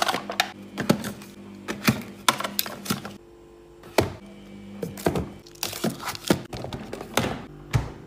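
Plastic yogurt cups and cartons being stacked and set down on fridge shelves: a quick run of light clicks, taps and knocks over a steady low hum, ending in a heavier low thump as the fridge door is shut.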